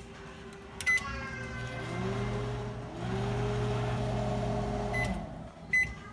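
Microwave oven: a keypad beep, then the oven running with a steady electric hum that rises in pitch as it starts up, stopping after about four seconds, followed by another short beep near the end.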